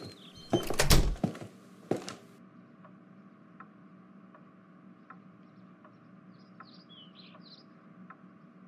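A door thudding shut, with a couple of knocks, in the first two seconds. Then a low steady hum with faint scattered ticks and a few brief high chirps.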